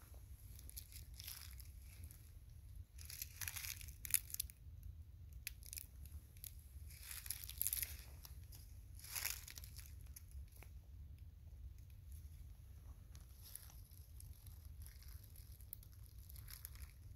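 Footsteps crunching and rustling through dry fallen leaves in an irregular, unhurried walk, with a few louder steps.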